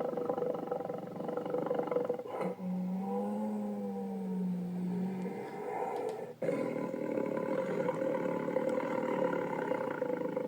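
Tiger sound effects: a run of rough growls and roars, cut together in separate takes, with a held, pitched yowl from about two and a half to five seconds in.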